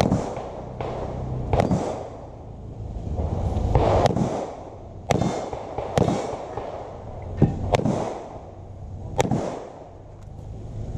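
Handgun shots fired one at a time or in quick pairs, about nine in all, spread irregularly with gaps of about a second or more, each with a short echo.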